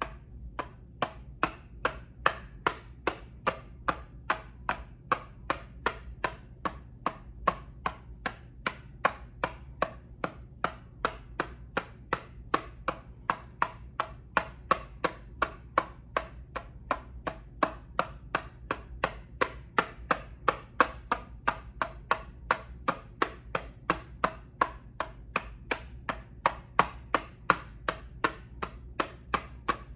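Rhythmic tapping on an eyeshadow palette: sharp, evenly spaced clicks, about three a second, kept up steadily.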